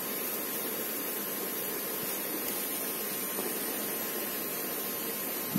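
Steady, even background hiss of an outdoor location, with one short tap just before the end.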